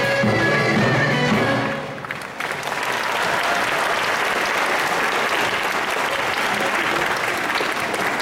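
Turkish folk dance music ending about two seconds in, then an audience applauding steadily.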